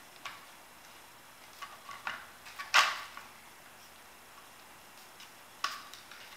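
A handful of short sharp clicks and taps, spread out, the loudest about three seconds in: stainless steel bolts being pushed through a Kydex cheek rest and an M14 rifle stock.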